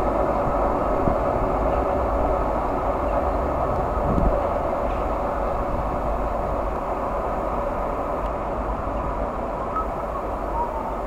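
Locomotive-hauled train running away along the track, its steady rumble and rail noise slowly fading as it recedes, with a short low thump about four seconds in.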